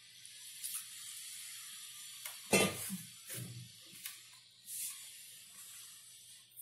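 Hand mixing crumbly wheat-flour dough with water in a glass bowl, a gritty rustling and squishing, with a loud knock about two and a half seconds in and a few softer ones after.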